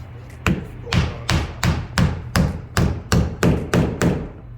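A hammer striking about eleven quick blows, roughly three a second, each with a short ring.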